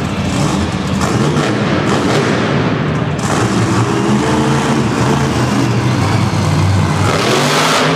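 Monster truck supercharged V8 engines running and revving, their pitch rising and falling, with a swell of noise near the end.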